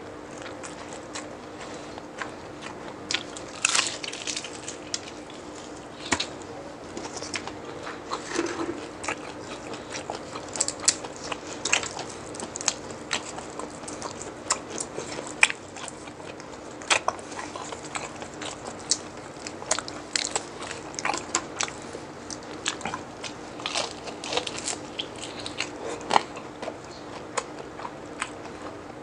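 Close-up crunching and chewing of deep-fried chicharon bulaklak (crispy pork mesentery): crisp bites followed by runs of irregular sharp crackles as the pieces are chewed, over and over.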